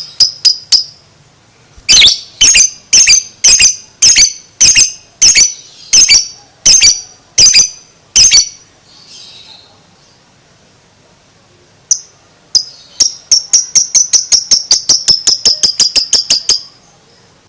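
Lovebird ngekek: loud, shrill calls repeated evenly, about two a second for some six seconds. After a pause of a few seconds a second run starts slowly and speeds up to about four or five calls a second.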